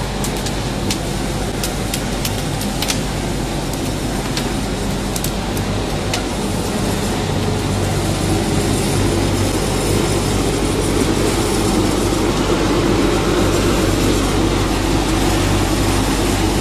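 Rotary drum dryer running: a steady machine drone with a low hum from the drive and the turning drum and its air handling, with scattered sharp clicks in the first several seconds. It grows slightly louder about halfway through.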